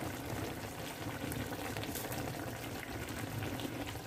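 Eggplant slices simmering in tomato sauce in a frying pan: a steady bubbling.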